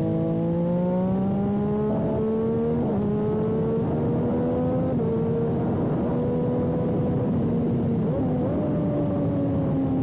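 Motorcycle engine heard from on board during a track lap, over wind rush. Its pitch climbs under acceleration with a couple of small jumps, then holds steady and eases down near the end.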